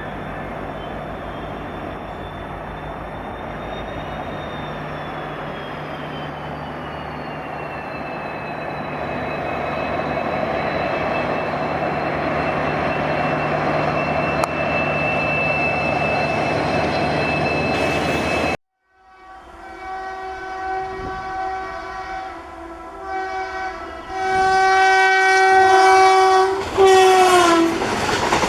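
Locomotive running past with a steady rumble and a faint whine that slides down in pitch, growing louder. It cuts off suddenly; then a locomotive horn sounds in a series of blasts, and the last one drops in pitch as it passes.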